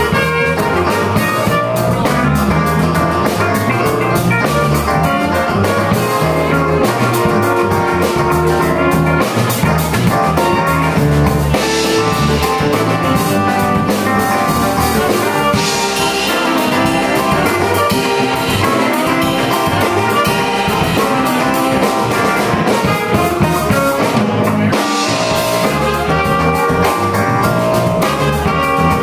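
A live funk band playing an instrumental: a horn section with trumpet and trombone leads over a drum kit, at a steady full level.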